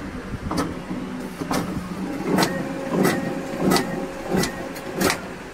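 Ricoh DX2430 digital duplicator running a test print with a newly replaced paper-feed friction pad: a steady motor hum with a sharp snap as each sheet goes through, about three every two seconds.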